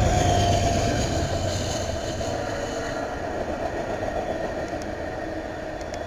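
Passing train: a steady low rumble of engine and wheels on the rails that slowly fades.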